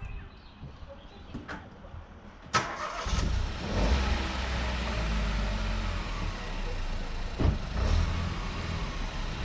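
A Ford Fiesta's engine being started: a short crank about two and a half seconds in, then it catches and runs at idle.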